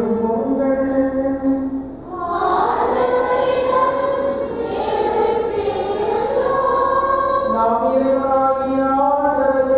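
Church choir singing a hymn in long, held notes, with a short break about two seconds in.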